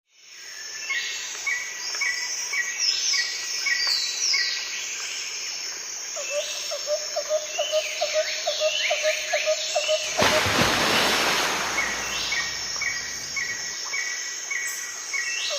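Outdoor ambience full of birdsong: several birds repeating short chirps and quick falling whistled notes, with a lower call repeated rapidly for a few seconds in the middle. About ten seconds in, a burst of rushing noise lasts around two seconds and covers them.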